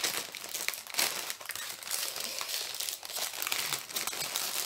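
Plastic packaging crinkling and crackling as it is handled and unfolded, an irregular run of small crackles with no pauses.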